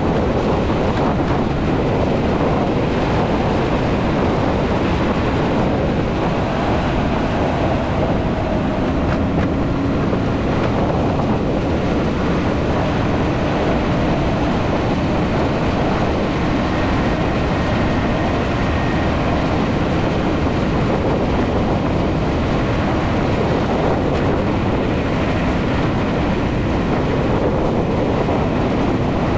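Vehicle driving at steady speed: a constant rush of wind and tyre noise, with a faint engine hum underneath.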